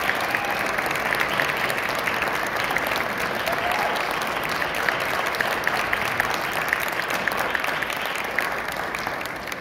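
Audience applauding: dense, steady clapping that starts to fade near the end.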